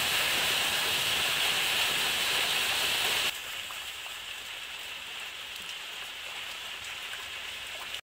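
Steady rain falling on foliage. About three seconds in it cuts suddenly to quieter rain falling into a water-filled basin, with single drops heard separately.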